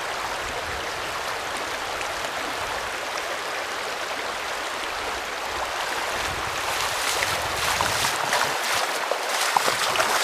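A shallow, rocky trout river running steadily. From about six seconds in, splashing and sloshing of someone wading through the current rises over it, with many short sharp splashes near the end.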